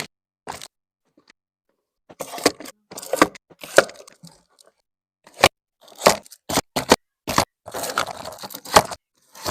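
Plastic food packaging and containers being handled: crinkling, tearing and scraping plastic with sharp clicks and knocks, in short separate bursts with abrupt silent gaps between them.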